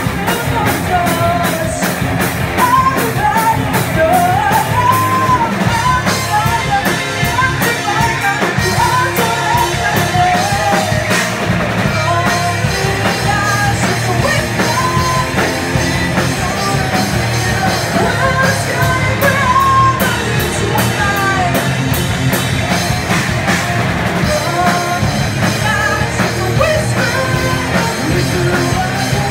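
A live rock band playing: a woman sings the melody over electric guitars and a drum kit.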